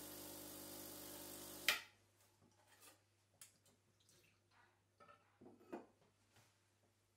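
Gaggia Classic Pro steam wand purging: a steady hiss with a low hum that stops abruptly with a sharp click about two seconds in. After it, faint clinks and knocks of a stainless steel milk pitcher being handled.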